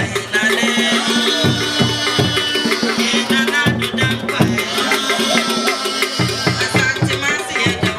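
Music with a steady drum and percussion beat and pitched melodic parts.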